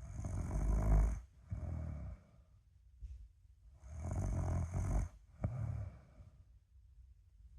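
A sleeping person snoring: two breathing cycles, each a loud snore followed after a short gap by a shorter, softer one. The first pair comes at the start and is the loudest; the second comes about four seconds in.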